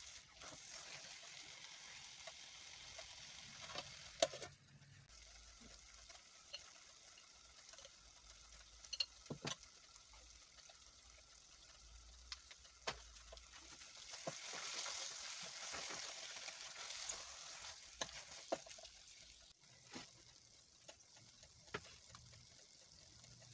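A thick red stew base frying faintly in an aluminium pot as it is stirred with a spoon, the spoon knocking against the pot now and then. The sizzle grows louder for a few seconds past the middle.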